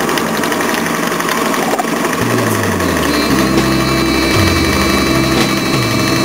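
Clay brick making machine running: a steady mechanical drone from its drive, its pitch dipping and recovering a few times as the load changes.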